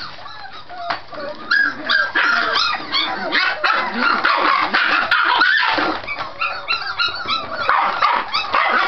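Scottish Terrier puppies play-fighting, a stream of short yips and barks that overlap one another; the calls are sparse at first and come thick and fast from about a second and a half in. This noise is typical Scottie puppy play, not a real fight.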